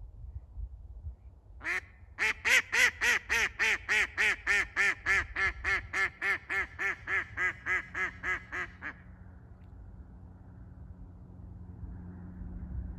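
A live decoy hen duck gives one quack, then a long run of about twenty loud quacks at roughly three a second that slowly fades. This is the hen's 'landing call' series, used to lure a drake mallard down onto the water.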